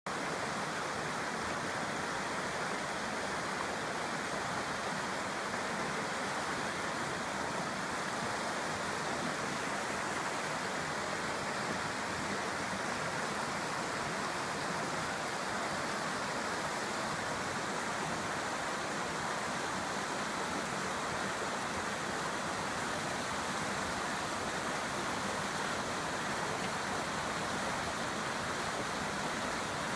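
The Virgin River's water rushing steadily, an even hiss with no breaks.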